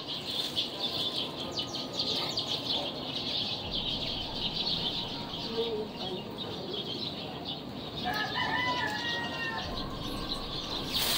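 Clothes and a plastic bag being handled, a steady crackly rustling. Around eight seconds in, a bird calls briefly in the background.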